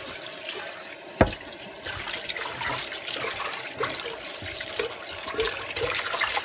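Tap water running over a saucepan being rinsed in the sink, splashing steadily, with one sharp knock about a second in.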